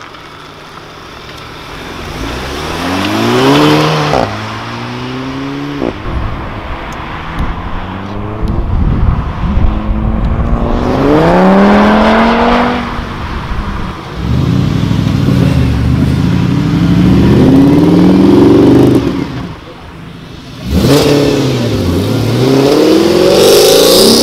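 Several Audi performance cars, among them a TT and an RS4 Avant, accelerating hard past one after another. Each engine's pitch climbs steeply and drops back at the gear changes, with a brief quiet gap a little after two-thirds of the way through.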